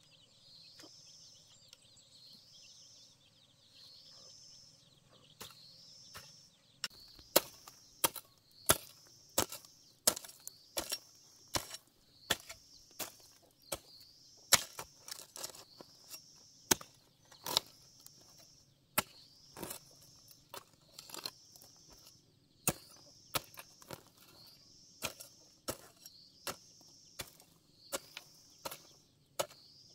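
A hand hoe chopping into dry, root-filled soil in regular strikes, about three every two seconds, starting around seven seconds in.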